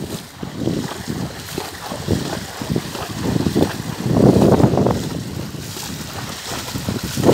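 Horses wading and splashing through shallow floodwater, hooves churning the water, with wind buffeting the microphone in irregular gusts. The loudest gust comes about four seconds in.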